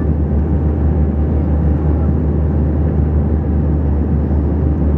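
Cabin noise of a BAe ATP twin turboprop on final approach: the engines and propellers make a steady drone with a strong, deep hum underneath.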